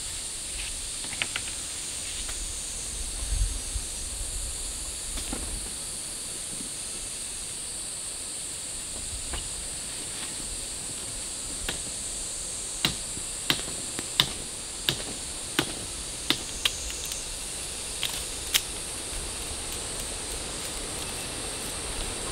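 Steady high-pitched insect drone. About two thirds of the way in comes a run of about ten sharp taps, roughly one every 0.6 to 0.7 seconds.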